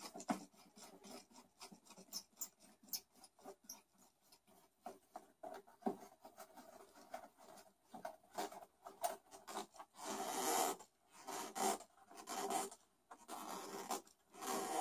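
Hands fitting small parts onto a Mosquito Magnet's plastic housing: a run of small clicks and taps, then, about two-thirds of the way in, several longer scraping rubs of plastic and metal parts being worked into place.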